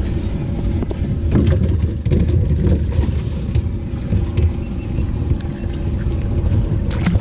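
Wind rumbling on the microphone, with scattered handling knocks and splashes as bass are lifted out of a bass boat's open, water-filled livewell.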